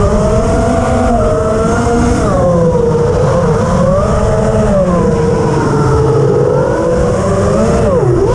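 FPV quadcopter's motors and propellers whining as heard from its onboard camera, the pitch sliding up and down with the throttle and dipping sharply near the end.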